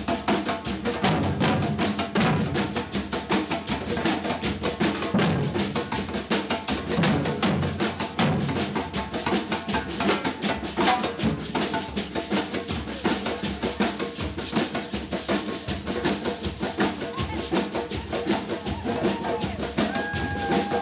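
Batucada samba percussion band playing a continuous, driving rhythm on drums and wood-block-type percussion.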